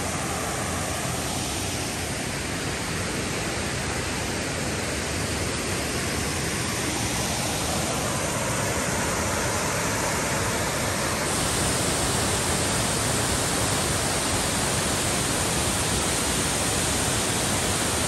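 Waterfall cascading over rock ledges into a pool: a steady, even rush of water. About eleven seconds in it becomes a little louder and brighter.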